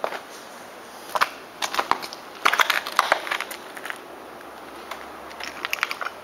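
Footsteps crunching over rubble and broken debris, coming in irregular clusters of gritty crunches, busiest from about a second in to three seconds and again near the end.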